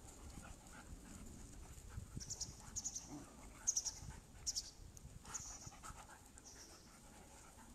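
Standard poodles panting faintly as they play, in short breathy bursts every half second to a second.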